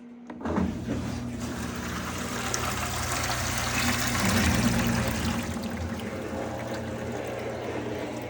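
Amana top-load washer's drain pump running in its diagnostic drain test. It kicks on about half a second in and hums steadily while water pours from the drain hose into a bucket, a sign that the pump is working properly.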